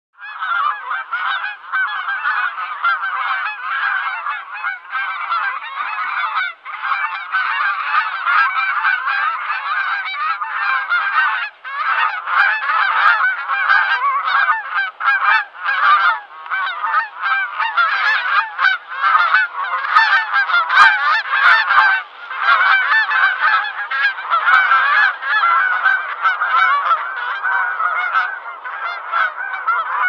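A flock of geese honking, many calls overlapping in a dense, unbroken clamour that starts suddenly.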